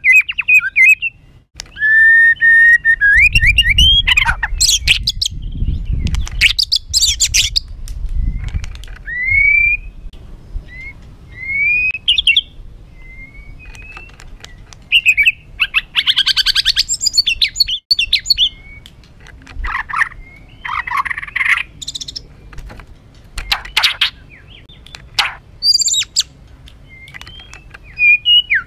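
White-rumped shama singing a harsh, aggressive song in separate phrases: clear rising and falling whistles mixed with rasping, scratchy bursts. A low rumble sits under the song in its first third.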